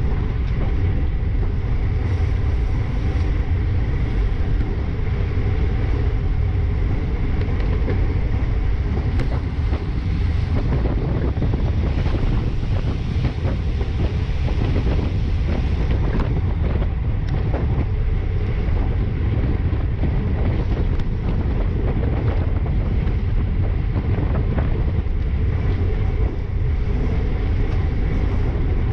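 Wind buffeting the microphone of a bike-mounted action camera riding in a racing pack at about 20 mph: a steady low rumble.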